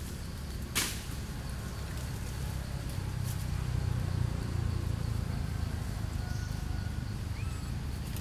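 Forest ambience: a steady low rumble with faint insects buzzing, a single sharp click about a second in, and a short rising chirp near the end.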